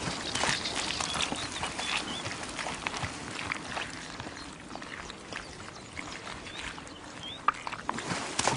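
Wild boars wallowing in a mud puddle: irregular wet squelches, slaps and splashes of mud.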